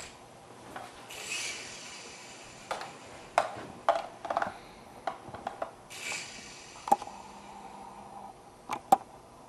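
T-Smart 802 toy micro coaxial helicopter on a tile floor: irregular sharp clicks and taps as it spins up and lifts off, the loudest about seven and nine seconds in. Two short bursts of hiss come about one second and about six seconds in, and a faint steady motor hum follows the seven-second click for about a second.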